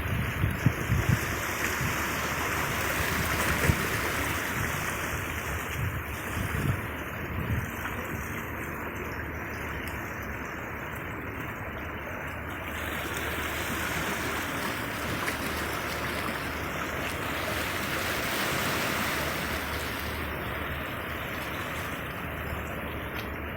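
Mediterranean sea waves washing in a steady rush that slowly swells and eases, with wind gusting on the microphone near the start.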